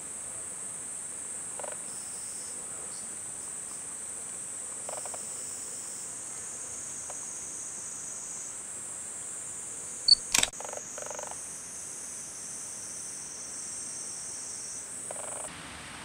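Insects chirring in a steady, high-pitched drone. About ten seconds in, a camera gives a short beep and a sharp, loud double shutter click.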